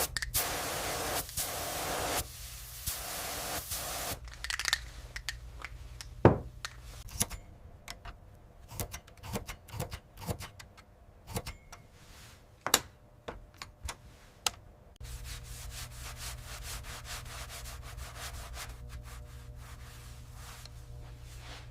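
Hand work on rusted typewriter metal parts: rubbing and sanding strokes, then scattered sharp clicks and knocks of small metal parts being handled, and from about two-thirds of the way in a steady hum with a rapid, even ticking.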